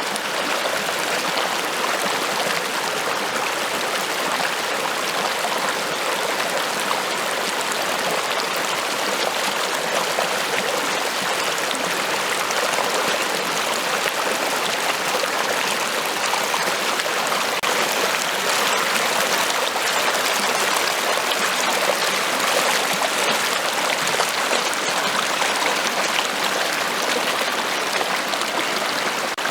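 Running water: a steady, even rushing with no breaks.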